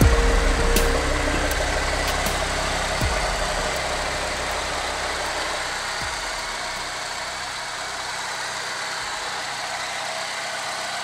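Chevrolet Tornado pickup's engine idling steadily under the open hood, a little louder in the first second.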